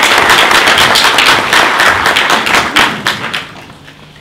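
Audience applauding, a dense patter of hand claps that dies away about three to four seconds in.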